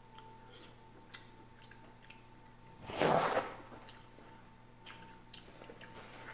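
A short, loud rush of noise about three seconds in, made into a paper napkin held over the nose and mouth, with a few faint clicks of eating and handling around it.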